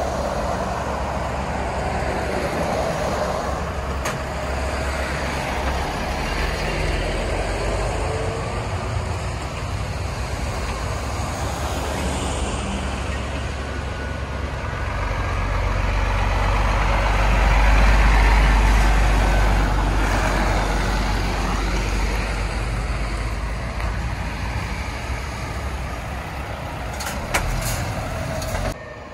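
Heavy articulated lorries driving past close by, a steady mix of diesel engine rumble and tyre noise that swells as a truck draws level, loudest about two-thirds of the way through. A couple of short sharp clicks near the end.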